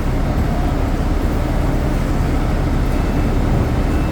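Loud, steady low rumble of urban background noise, with no clear music or voice on top.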